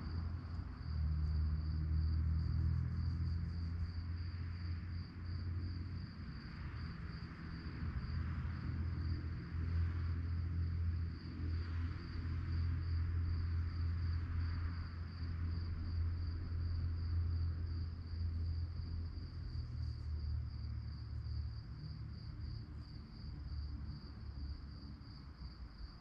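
Crickets chirping in a steady, fast-pulsing high trill, over a low rumble.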